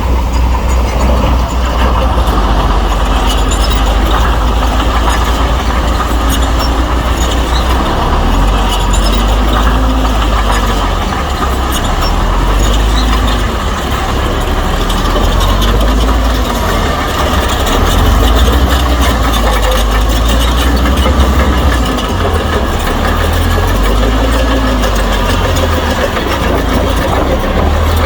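Heavy diesel earthmoving machinery running steadily at a working site, with a low engine rumble. A faint whine rises and falls about every two seconds.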